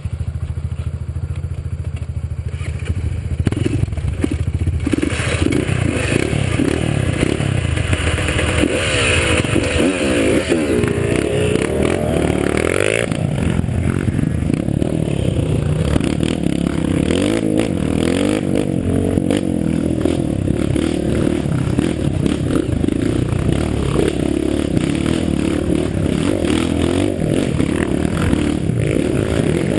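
Off-road vehicle engine running hard on a rough trail, revving up and down, with clatter and scraping from the terrain. The engine comes in suddenly at the start and climbs in a long rising rev about ten to thirteen seconds in.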